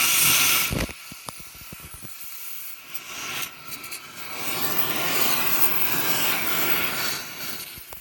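Oxy-acetylene cutting torch hissing as it burns through the bolts on a combine harvester's track frame, to get a broken track roller off. The hiss breaks off with a low thump about a second in, a few clicks follow, then it builds again and fades near the end.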